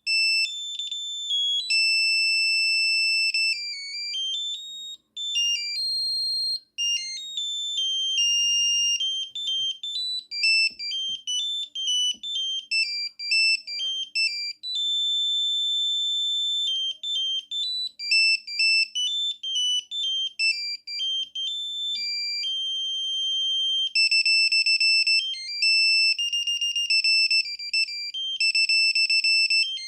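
Samsung SGH-N710 mobile phone playing a built-in ringtone: a high, electronic beeping melody of single notes, with brief breaks about five and seven seconds in and a quicker run of short repeated notes in the last few seconds.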